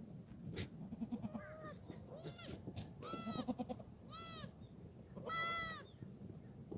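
Black goats bleating: a series of calls at different pitches, some short and quavering. The longest and loudest bleat comes about five seconds in.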